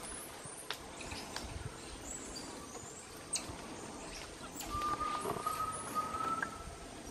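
Bolivian squirrel monkeys moving through the forest canopy: scattered snaps and rustles of branches and leaves, with a few short high chirps. In the second half a thin, steady whistled note holds for about two seconds.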